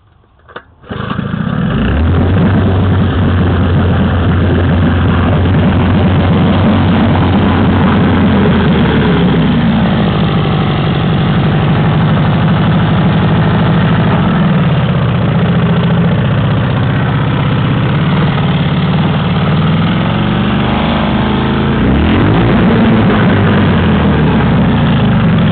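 1955 Elgin 7.5 hp two-stroke outboard motor starting about a second in, then running steadily. Its speed dips and picks up again about ten seconds in and once more about twenty seconds in.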